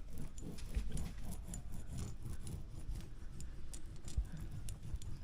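Irregular rubbing and scraping with many small clicks: hand work on a board or panel.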